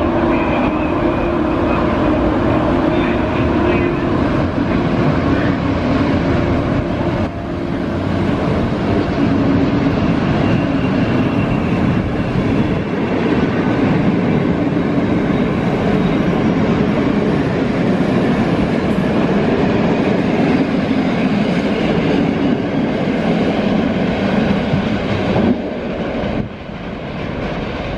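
Electric-locomotive-hauled PKP Intercity passenger train running past at speed: a loud, steady rush and rattle of coach wheels on the rails, falling away near the end as the last coach goes by.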